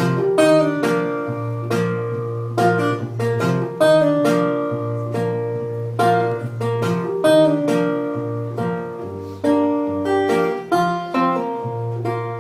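Acoustic guitar picked in an instrumental passage of a song: a run of crisp, sharply struck notes over low held bass notes.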